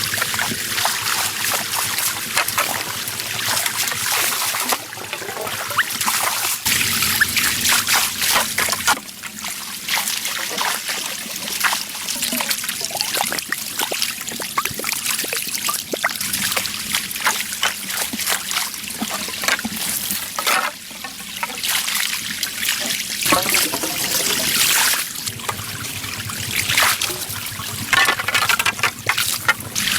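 Water trickling and splashing, full of small crackling splats, its texture shifting abruptly a few times.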